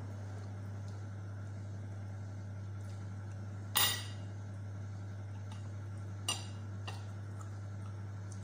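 A few sharp clinks of utensils on a plate: the loudest about four seconds in, then two lighter ones a couple of seconds later. A steady low hum runs underneath.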